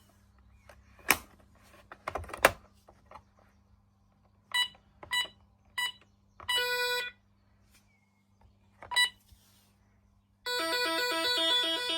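An intruder alarm keypad beeping as keys are pressed: two sharp clicks, then three quick beeps, a longer beep and one more. About ten and a half seconds in, the alarm starts a loud warbling tone that steps rapidly between pitches.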